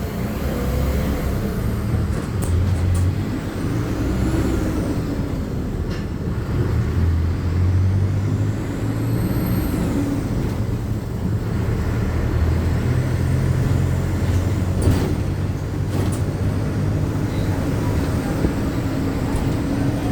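City bus engine running, heard from inside the passenger cabin: a steady low rumble whose pitch rises and falls, with a few sharp rattles and clicks from the body.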